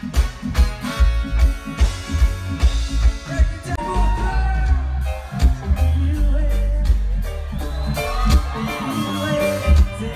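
Live band music, loud: drums, bass and keys, changing about four seconds in to a stretch with singing over a steady heavy bass.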